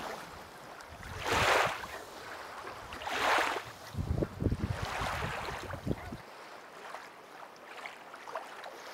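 Lake water splashing and sloshing around a swimming dog and an inflatable float, swelling twice about two seconds apart, with wind buffeting the microphone. The sound drops away to a faint hiss about six seconds in.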